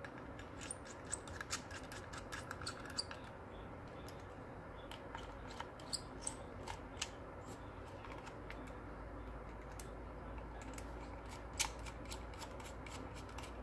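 Small hex driver turning the screws of a CPU water block's metal mounting plate down until snug: faint, scattered metallic clicks and ticks as the bit seats in the screw heads and the screws turn.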